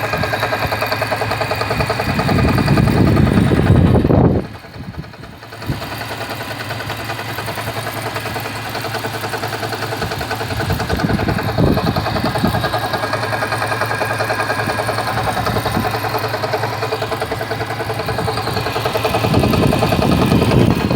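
Car engine idling just after a cold start, with a rapid, steady knock running through it. It swells louder twice and drops away sharply for about a second and a half around four seconds in.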